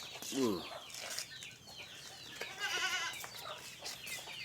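Village chickens calling: short clucks and high chirps, with one longer, quavering squawk about two and a half seconds in.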